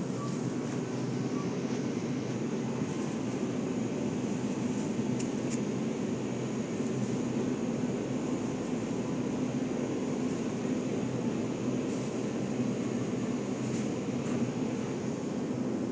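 Steady low hum and rush of supermarket background noise, the running of the store's ventilation and display-case machinery, with a few faint clicks.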